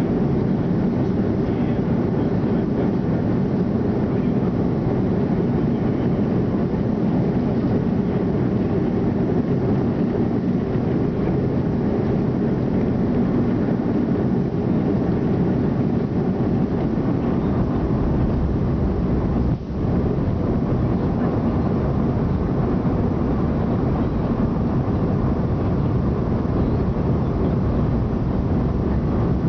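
Steady jet airliner cabin noise, with engine and airflow heard from inside the passenger cabin as the plane descends through cloud. The noise dips briefly about twenty seconds in.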